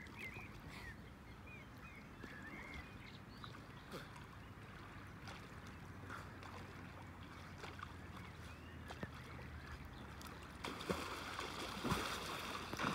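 Lake water lapping and a swimmer splashing, with the splashing louder near the end.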